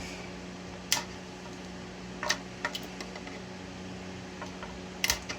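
A few sharp clicks and snaps of PLA support material being broken off a 3D print: one about a second in, a cluster around two and a half seconds, and a quick double click near the end, over a steady low hum.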